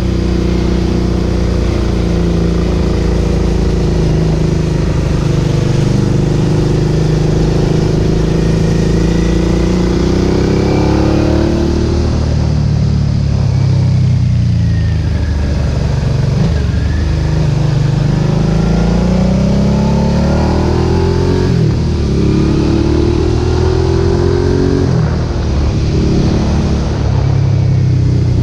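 Suzuki SV650's 645 cc V-twin through a Roadsitalia aftermarket exhaust with its dB-killer in, ridden hard: the engine note climbs repeatedly under acceleration, drops back at each gear change, and eases off on the throttle for a few seconds midway.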